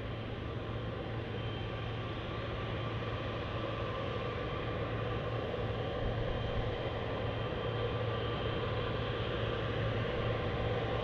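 Jet airliner engines running steadily, a constant noise with a low hum and faint high whine, slowly growing louder.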